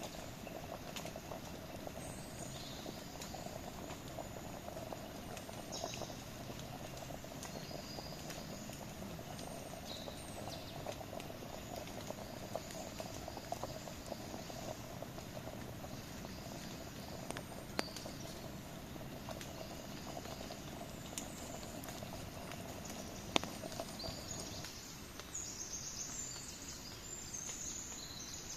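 Wood campfire burning with a steady hiss and scattered sharp crackling pops, a few of them louder. Short high chirps come and go, busiest near the end.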